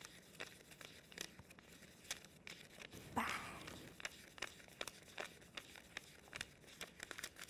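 Banknotes being flicked through one by one in fast hand-counting: faint, crisp paper snaps, about two or three a second, with one louder brief swish about three seconds in.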